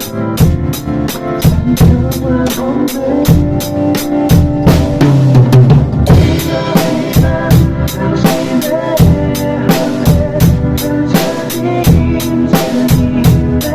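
Drum kit played along with a recorded worship song: a steady beat of about four cymbal or hi-hat strokes a second with bass drum and snare, and a cymbal crash about five seconds in.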